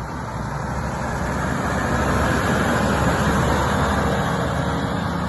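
Motor vehicle running past on a road, its engine and road noise growing louder toward the middle and easing off again.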